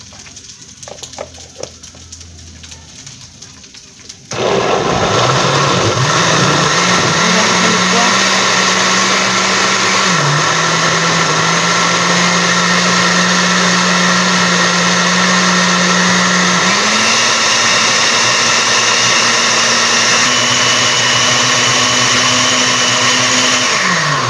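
Electric countertop blender switching on about four seconds in and running steadily as it purées boiled green tomatoes, serrano chiles, cilantro and garlic in water into salsa verde. Its motor pitch drops a little about ten seconds in, rises again about seventeen seconds in, and slides down as it winds off at the end.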